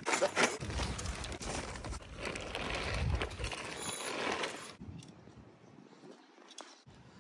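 Nylon tent fabric and its carry bag rustling and crinkling as they are handled, with a few light knocks. The sound drops to faint handling noise about five seconds in.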